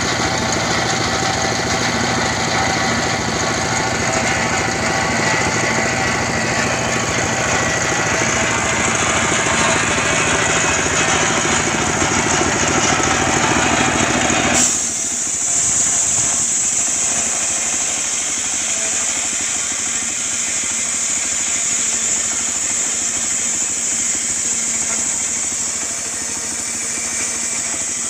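Homemade diesel-powered mobile circular sawmill running, its diesel engine driving a circular saw blade that rips a log lengthwise. About halfway through, the sound changes abruptly: the deep engine-and-cutting noise drops away and a thinner, high hiss carries on.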